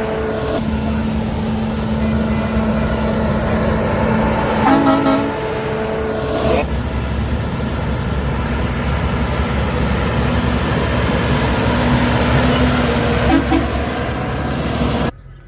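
Passing train with a steady rumble, its locomotive horn blowing in long low blasts with a short chord about five seconds in. The sound cuts off abruptly near the end.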